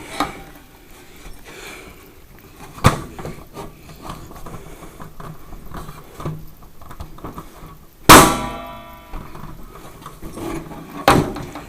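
Knocks and clatter of parts being worked back onto a salon hair dryer, with three sharp knocks. The loudest comes about eight seconds in as a clank that rings briefly.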